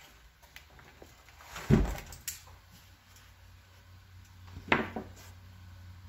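The plastic case of a Commodore 1084S monitor being tipped up onto its front on a wooden workbench: a heavy thud about two seconds in, a sharp knock just after, and another knock near the end.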